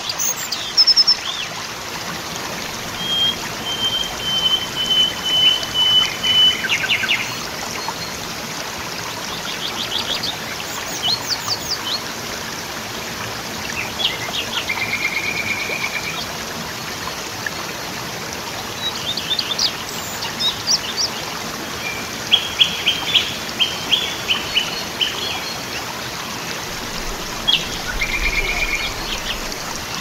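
Waterfall rushing as a steady wash of water noise, with wild birds chirping and calling over it: one long thin whistled note about three seconds in, and scattered bursts of quick high chirps.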